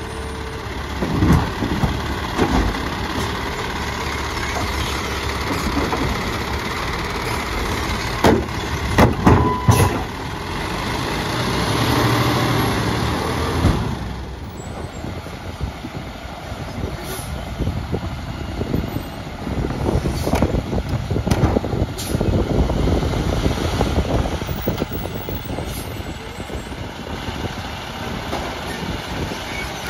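Automated side-loader garbage truck with a New Way Sidewinder arm at work, its engine running throughout. The arm lifts and dumps a cart with several sharp clanks and knocks in the first ten seconds. The engine swells as the truck pulls ahead, and more knocks follow as it works the next carts.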